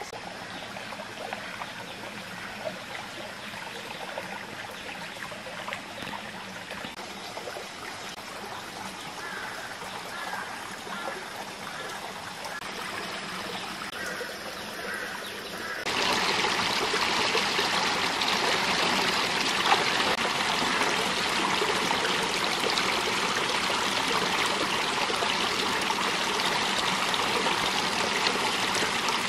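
Shallow rocky stream running and trickling over stones, steady throughout; about sixteen seconds in it becomes clearly louder.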